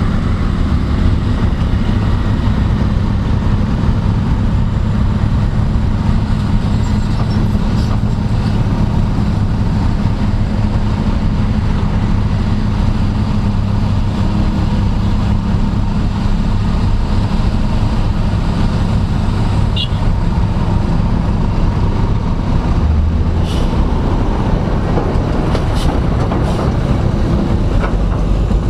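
Steady low rumble of heavy diesel earthmoving plant, an excavator and an articulated dump truck, running without a break. A few short clicks come near the end.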